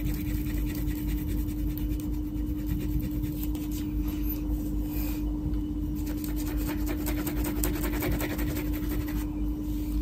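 Wax crayon rubbing back and forth on colouring-book paper in rapid short strokes, over a steady low hum. The strokes stop shortly before the end.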